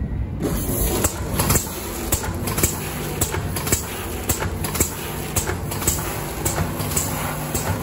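AUTOMPACK ATM-320C vertical form-fill-seal packaging machine running over a steady hum. From about half a second in, its mechanism clacks about twice a second as it seals and cuts a strip of small bags.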